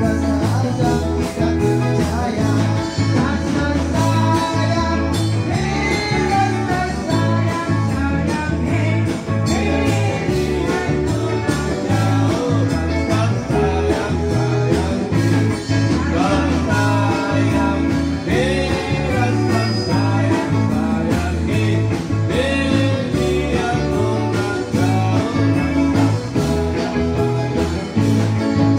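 Live band playing a song through a PA: electric guitars and keyboard over a steady, repeating bass line, with voices singing the melody into microphones.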